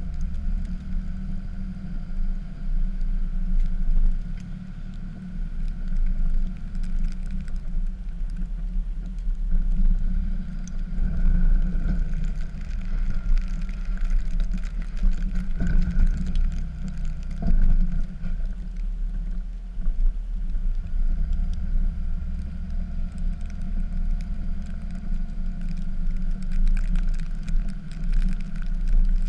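Dodge pickup's Cummins inline-six turbo diesel running steadily with a low rumble while plowing snow, with a few brief knocks in the middle.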